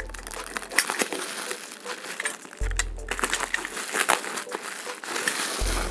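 Parcel packaging and bubble wrap crinkling and crackling as they are handled and pulled open by hand, over background music with a deep bass note about every three seconds.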